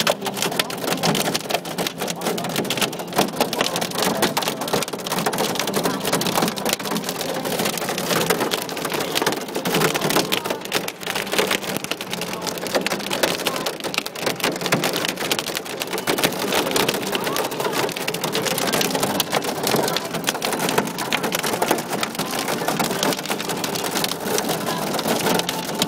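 Hail pelting a car, heard from inside the car: a loud, steady, dense clatter of countless small impacts on the body and glass.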